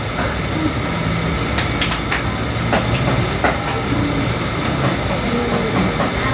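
A steady rumbling room noise with scattered short clicks and a few brief, faint voices in the background.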